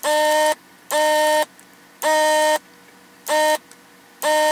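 Vacuum desoldering gun's suction pump buzzing in short bursts, about half a second each, as it is triggered on one solder joint after another to clear the LCD display's pins. Five bursts at uneven intervals, each rising briefly in pitch as the pump gets up to speed.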